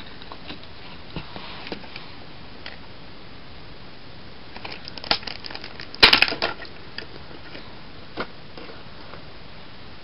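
Hands handling a plastic Bakugan toy: scattered small clicks and rustles, with a louder clatter about six seconds in.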